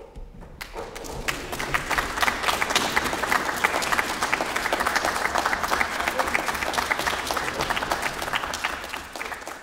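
Applause: many hands clapping. It starts suddenly, swells over the first two seconds, holds, and tapers off near the end.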